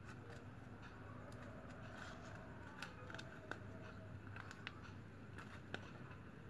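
Faint rustling and scattered light clicks of a thin plastic strap being wound and tucked by hand around a bamboo fan handle, with a few sharper ticks in the middle, over a low steady hum.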